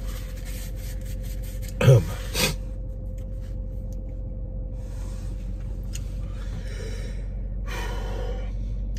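A man breathing and sighing after eating, with a short, loud sound from his throat about two seconds in and a smaller one just after. A steady low hum runs underneath.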